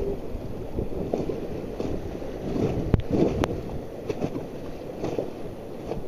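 Whitewater rapids rushing and splashing around a raft, with wind buffeting the microphone; a sharp knock about three seconds in.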